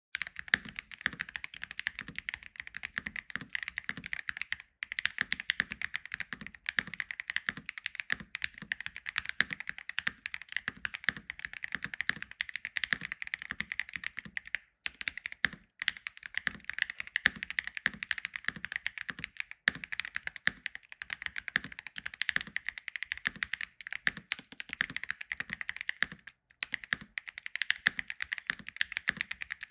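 Steady fast typing on a Keychron C75 TMR gasket-mount mechanical keyboard fitted with factory-lubed Ultra-fast Lime magnetic linear switches and double-shot PBT OSA keycaps. The keystrokes have a soft, deep 'thock' tone, with short pauses about five seconds in, at mid-point and near the end.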